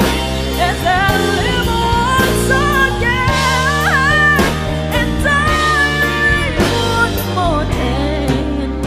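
Female singer performing a pop ballad live with band accompaniment, holding notes with vibrato and sweeping through a quick vocal run about four seconds in.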